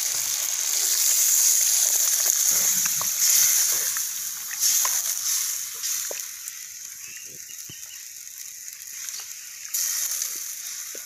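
Duck curry in a metal pot over a wood fire, sizzling and sloshing as water is stirred in. The hiss is loudest for the first few seconds and then dies down, with scattered sharp clicks throughout.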